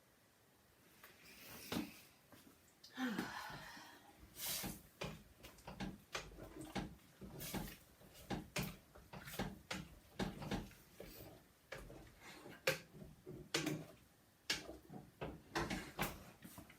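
Kitchen clatter from cooking: an irregular run of knocks, clicks and scrapes of utensils against a pot.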